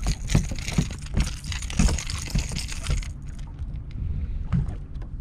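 A hooked bass thrashing beside the boat during the fight, splashing with sharp clatters and rattles for about three seconds, then only scattered clicks.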